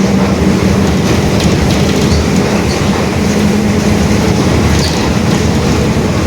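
Mercedes-Benz OF-1721 city bus under way, heard on board: a steady drone from the growling differential over the rumble and rattle of the bus. The drone is strongest at the start, eases off, and swells again about three seconds in.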